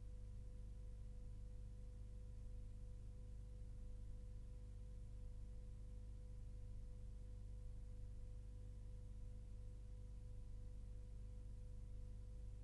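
Steady low electrical hum with a faint thin tone above it, and no other sound: the background noise of a blank stretch of the recording.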